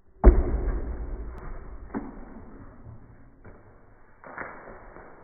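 Small rubber ball hitting and bouncing on a tiled floor, slowed down so that each hit is a deep, drawn-out thud with a long fading tail. There are four hits: the first, about a quarter-second in, is the loudest, and the later ones near 2, 3.5 and 4.4 seconds are weaker.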